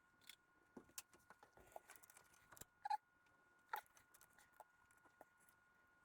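Faint, scattered clicks and small metallic knocks of tools and parts being handled, with one louder clink about three seconds in and another just after. A faint steady hum sits underneath.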